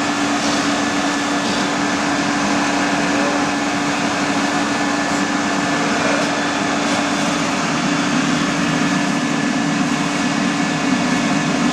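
Shoe grinding-and-polishing machine running with its dust-extraction fan on, a steady whirring hum with one constant tone.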